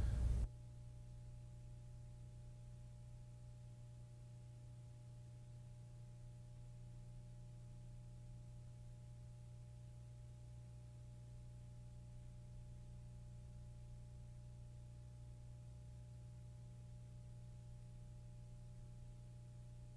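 Faint steady electrical hum made of a few level low and mid tones, with no pen scratching to be heard.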